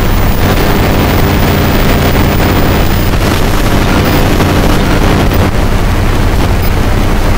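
Loud, steady, distorted rumble and hiss with a low hum underneath, from the phone's faulty audio, which buries any sound from the bees.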